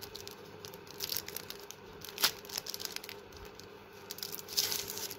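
Clear plastic wrapper crinkling on and off as a nail file is slid out of it, with a few sharper crackles.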